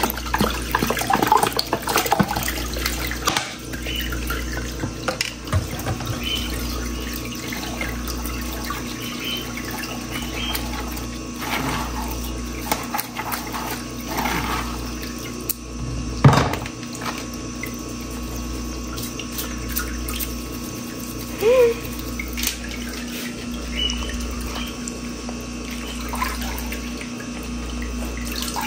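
Steady running water, as at a kitchen sink, with scattered clinks and knocks of kitchenware and one sharper knock about sixteen seconds in.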